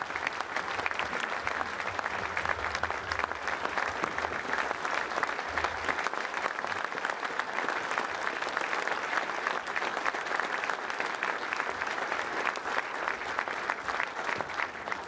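Audience applauding: many hands clapping together in a steady, sustained round.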